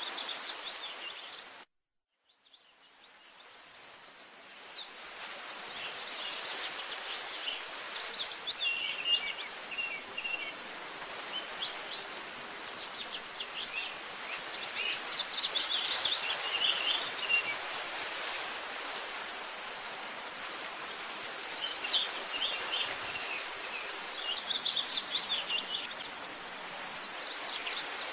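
Birds chirping in short bursts over a steady hiss, like a nature ambience track. About two seconds in the sound drops out briefly, then fades back in over the next few seconds.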